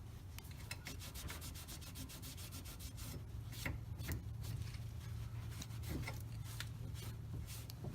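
A rag rubbing quickly back and forth over freshly sanded bare metal, wiping it clean in rapid scrubbing strokes.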